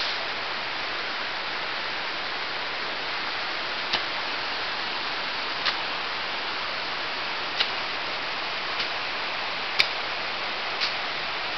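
Steady rush of a rocky woodland creek, with a handful of sharp, irregular clicks over it.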